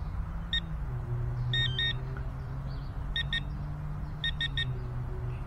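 Garrett pinpointer giving short high electronic beeps as its sensitivity is stepped down to the lowest setting: one beep, then a pair, another pair, and three quick beeps near the end. A steady low hum runs underneath.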